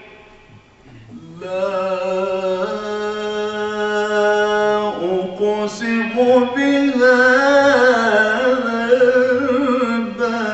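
A man's voice in melodic Quran recitation (tilawa), amplified through a microphone. After a short pause for breath, he holds one long steady note for about three seconds, then draws out a winding, ornamented line.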